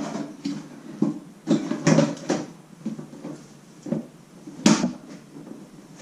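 Knocks and clatter from handling a small motorcycle alarm module and the bike's parts while trying it in place, with a cluster of light knocks and one sharper knock about three quarters of the way through.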